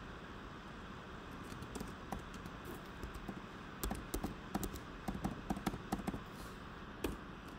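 Computer keyboard keys clicking as text is typed: a few scattered keystrokes at first, then a quick run of them from about four seconds in until near the end.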